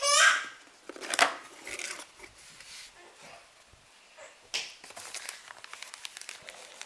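A cardboard gift box being opened and its plastic-bagged contents handled: a brief pitched squeak right at the start, then rustling and crinkling of plastic packaging in scattered bursts, busiest near the end.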